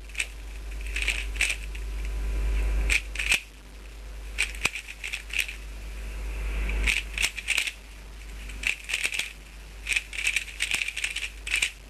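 Dayan GuHong 3x3 speedcube being turned fast during a solve: runs of sharp plastic clicking and clattering from the turning layers, broken by short pauses.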